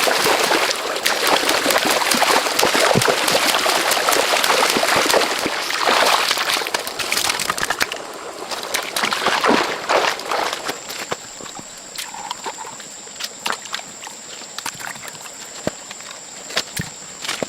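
Water sloshing and splashing, dense and noisy, then dropping to scattered clicks about halfway through. A steady high-pitched tone comes in a little after that.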